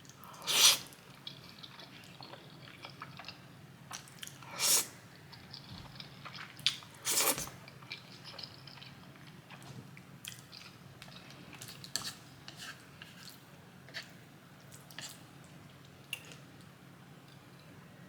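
Close-miked chewing and mouth sounds of someone eating ramen noodles and dumplings. There are three louder bursts, about a second in, near five seconds and about seven seconds in, with soft wet clicks of chewing in between.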